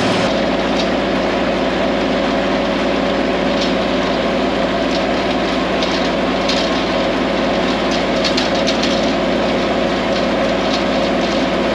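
Kubota compact tractor's diesel engine running steadily, with many short crackling ticks from the hay implement it is pulling.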